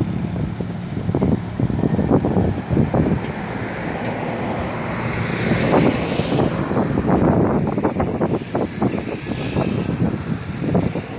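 Wind buffeting the microphone in irregular gusts over the steady low hum of a vehicle engine.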